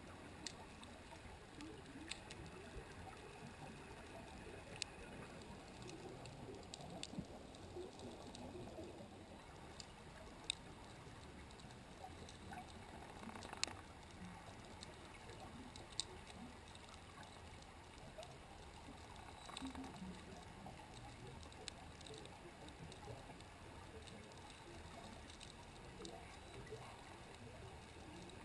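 Faint underwater ambience picked up by a submerged camera: a steady low hiss and rumble with sharp clicks every couple of seconds.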